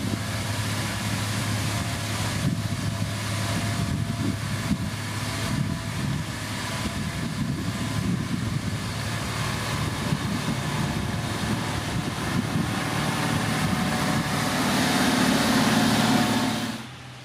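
Heavy diesel road-building machinery running steadily, a low engine hum under a dense rumbling noise. It grows louder near the end, then drops off sharply.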